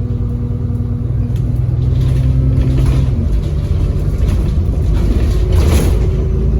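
ADL Enviro400 double-decker bus's diesel engine running under way, heard from on board. Its engine note steps down about three seconds in, and a short hiss sounds near the end.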